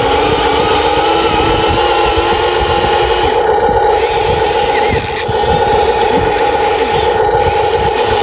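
Remote-control excavator running with a steady, even whine from its pump and motors.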